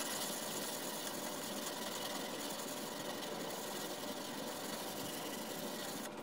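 Steady scraping of 120-grit wet-or-dry sandpaper worked by hand along the steel bevel of a drawknife: the coarse paper cutting the steel to grind a chip out of the edge.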